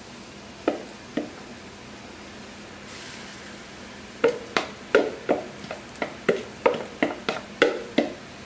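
Wooden spoon scraping and knocking against a mixing bowl as chopped onion is scraped out into a frying pan: two knocks about a second in, then a quick run of taps, about three a second, in the second half. Under it, a faint steady sizzle of onions frying.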